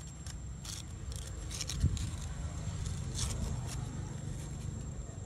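Dry leaves and twigs rustling and crackling as a baby long-tailed macaque picks through them, a few short crackles over a low steady rumble.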